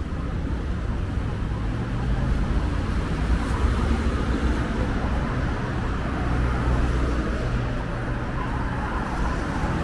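Steady rumble of car traffic on a wide city street, swelling a little as cars pass.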